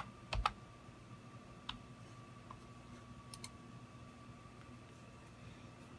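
A few separate clicks of computer keys: a pair about half a second in, single clicks near two seconds and two and a half, and a quick pair a little past three seconds. A faint steady electrical hum runs underneath.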